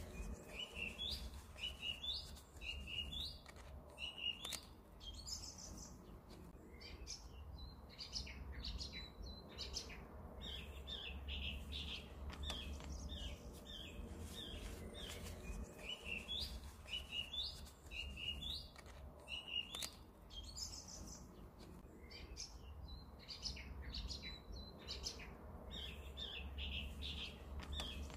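Small birds chirping throughout, in quick runs of short high notes, over a low steady rumble.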